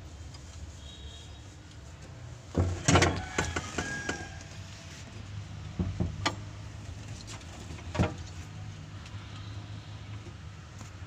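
Metal clanks and rattles from the van's gear-shift linkage being handled and fitted by hand: a burst of clattering knocks about a quarter of the way in, then a few single sharp knocks later. A steady low hum runs underneath.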